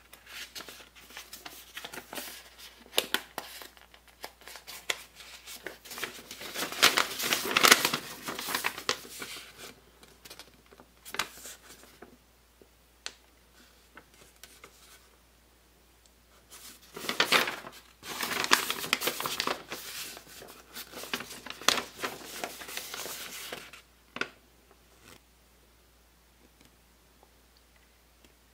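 Packaging being handled and unwrapped: crinkling and rustling in two long spells, with scattered light clicks and knocks in between.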